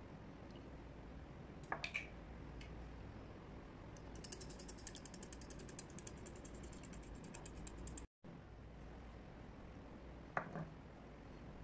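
Metal wire whisk beating eggs in a glass bowl: a fast run of light clicks from the wires striking the glass, lasting about four seconds. Earlier, two light clinks against the bowl; near the end, a single knock as a block of butter is set into an empty glass bowl.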